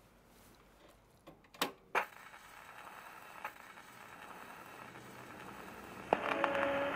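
A gramophone being handled: a few sharp clicks and knocks, then a faint hiss that grows as the record turns. About six seconds in the needle drops with a click and an old 78 record starts playing held notes.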